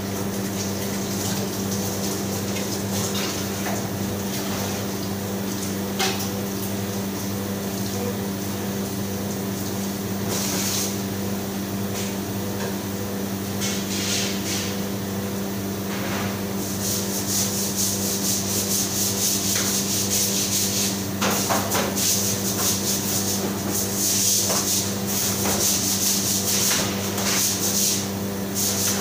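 A bristle broom sweeping a tiled floor in short, repeated scratchy strokes: a few scattered strokes at first, then steady sweeping from a little past halfway. Under it runs the steady hum of commercial kitchen machinery.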